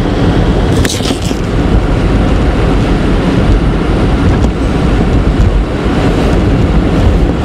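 Steady road noise inside a moving car on a rain-soaked road, tyres hissing on the wet surface, with a brief louder hiss about a second in.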